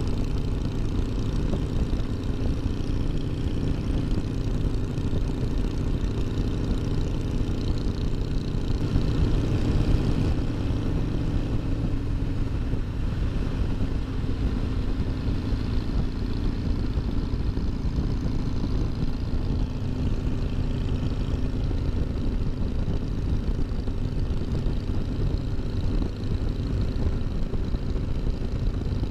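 Harley-Davidson Ultra Limited 114's V-twin engine running steadily while riding, a continuous low rumble that swells briefly about nine seconds in.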